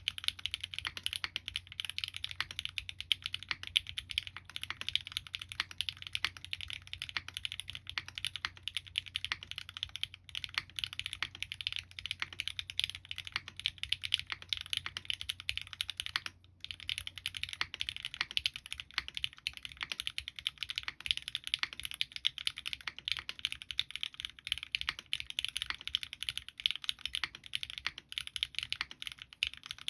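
Steady typing on a SingaKBD Kohaku mechanical keyboard with lubed Gateron Ink Black V2 linear switches in an aluminium plate, under GMK Kitsune keycaps. A rapid, continuous run of keystroke clicks, broken by a brief pause about sixteen seconds in.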